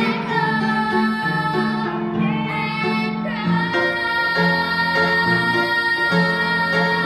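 Two girls singing over instrumental accompaniment, holding long sustained notes, with a change of note about halfway through.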